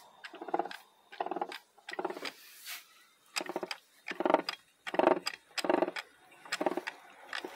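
Input shaft of a Ford 6R80 six-speed automatic transmission spun by hand, giving a repeated grinding growl from inside the gearbox: a short burst with each turn, about ten in all. It is a funny noise inside the transmission, which had been shifting erratically.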